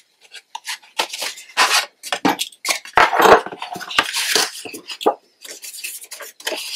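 Kraft cardstock being handled and set down on a cutting mat: irregular rustles, scrapes and light taps.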